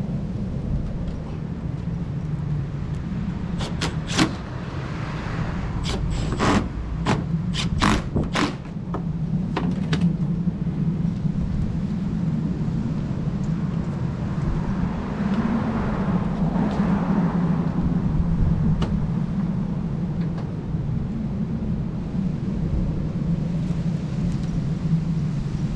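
About ten sharp clicks and knocks over roughly six seconds, from hand work on car headlight parts and fasteners, over a steady low rumble.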